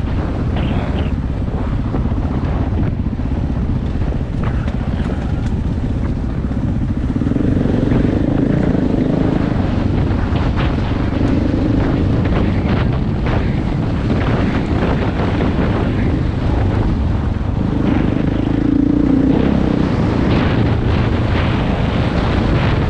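Single-cylinder four-stroke engine of a 2012 KTM 500 EXC dirt bike running on the trail under changing throttle, the revs picking up about a third of the way in and again near the end. Wind buffets the microphone, and there are scattered short knocks.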